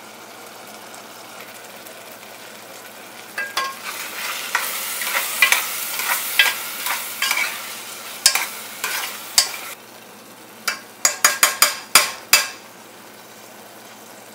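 Spices and tomato masala frying in an aluminium pressure-cooker pan, a low sizzle at first. From about three seconds in, a spoon stirs and scrapes through it for several seconds, with a quick run of sharp clicks of the spoon against the pan near the end.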